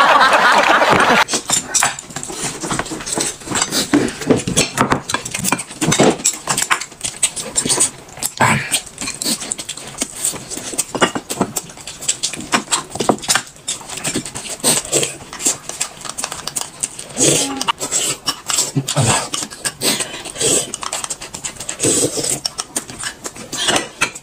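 Close-up eating sounds: chewing and mouth smacking on steamed buns, with irregular clicks of a spoon and chopsticks against a glass and plates.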